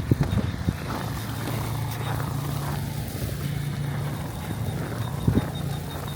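Boots crunching in fresh snow, a few steps heard clearly near the start and about five seconds in, over a steady low rumble.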